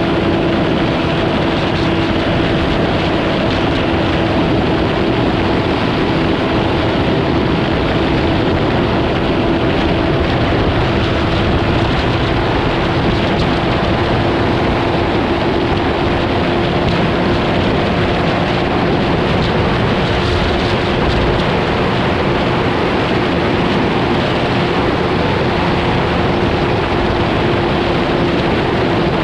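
A vehicle running at a steady speed: an even engine drone holding one pitch under a constant rush of road and wind noise.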